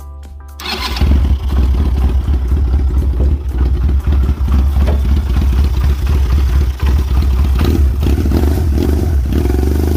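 Chinese 250cc ATV engine running steadily, cutting in suddenly about a second in. It will only run with the choke on, which the owner puts down to carburetor problems.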